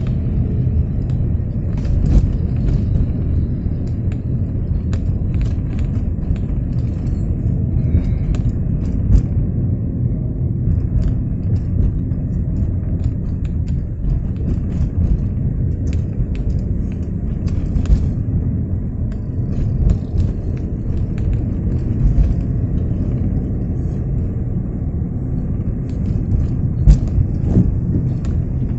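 Steady low rumble inside a car's cabin while it drives on a wet road in light rain: engine and tyre noise, with scattered faint clicks.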